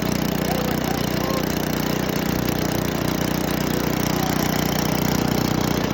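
Echo Bearcat wood chipper's 9 horsepower engine running steadily at an even speed.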